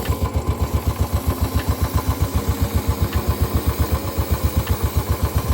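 Motorcycle engine idling steadily, a low, even thumping at about five or six beats a second.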